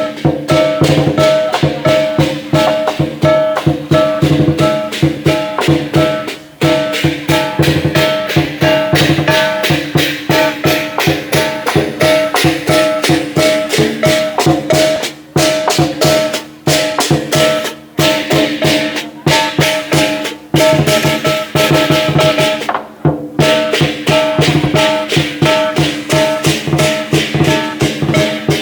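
Lion dance percussion band playing: a big drum beaten in a fast, steady rhythm with clashing cymbals and ringing gongs, stopping for a moment a few times.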